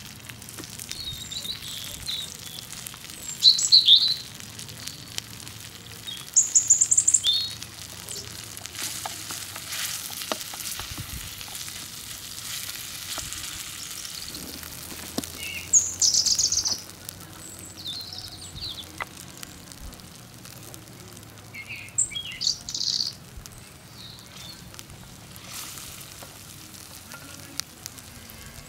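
Tomato paste and oil sizzling steadily in a small pan over campfire embers, with a wooden spoon stirring now and then. Birds chirp over it in four short, loud high-pitched bursts.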